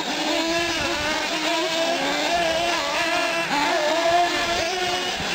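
Several 1/8-scale nitro RC trucks and buggies racing, their small glow-fuel engines whining and revving up and down as they go around the track.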